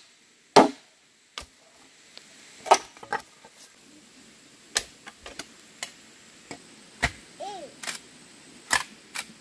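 A series of sharp, irregular knocks, about a dozen over the stretch, the loudest about half a second in.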